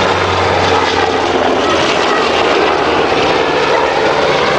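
Low-flying aircraft's engine droning steadily over a constant rush of noise, with a low hum that fades out about a second and a half in.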